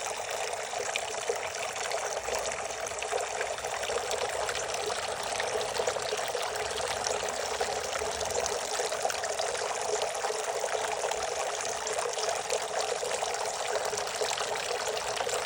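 Decorative water fountain running: water pouring and trickling steadily without a break.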